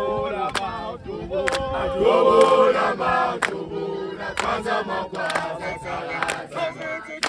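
A group of people singing a Zulu celebration song in chorus, with sharp hand claps about once a second.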